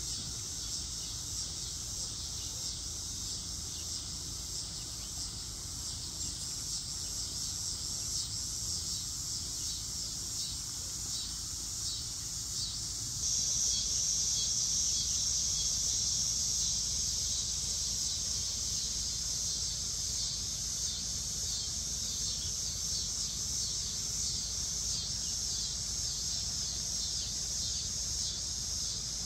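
Steady chorus of insects, crickets trilling high and fast, growing louder about thirteen seconds in, with a low rumble underneath.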